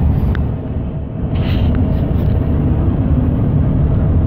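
Road noise inside a moving car on a highway: a steady low rumble of engine and tyres, with a brief hiss about one and a half seconds in.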